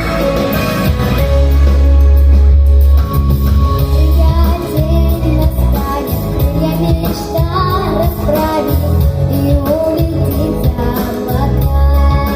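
A young girl singing a song over instrumental accompaniment with a heavy bass.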